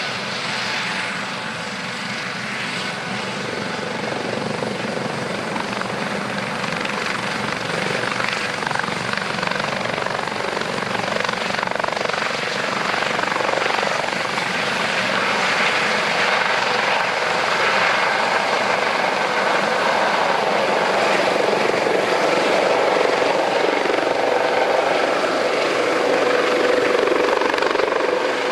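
Twin-engine Eurocopter Dauphin helicopter's turbines and rotor running as it lifts off and climbs away. A steady, continuous sound that grows gradually louder, with a whine near 500 Hz strengthening near the end.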